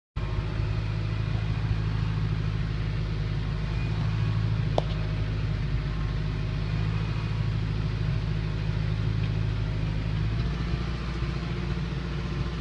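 Kubota tractor's diesel engine running steadily with a low drone, heard from the driver's seat as it hauls a loaded firewood box on the front loader. One sharp knock comes about five seconds in.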